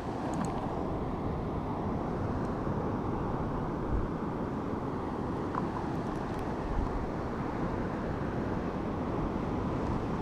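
Steady rushing noise of surf and wind on an open beach, with a few faint ticks.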